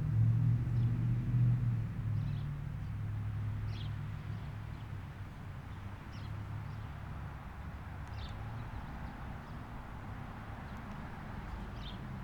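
A low vehicle rumble, loudest at first and fading over several seconds, with a few short high chirps every second or two.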